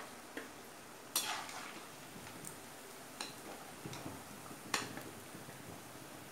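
Steel slotted spoon clinking and scraping against a steel kadhai as fried khurmi are lifted from the oil, with a few sharp clinks: the loudest about a second in, others near three and five seconds. A faint sizzle of frying oil runs underneath.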